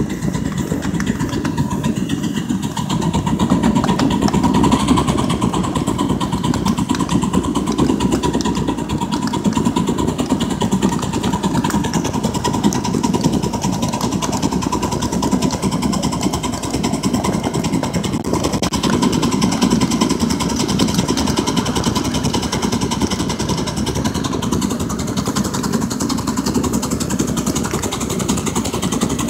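Allen 2-6-0 Mogul live steam locomotive in 7½-inch gauge running along the track, heard close behind it: a steady, rapid chuffing and the rumble of its running gear, with a faint steady tone underneath.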